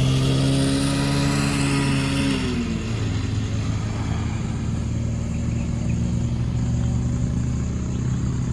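A motor vehicle's engine running steadily. Its pitch drops about two and a half seconds in, as if easing off or changing gear, then holds level.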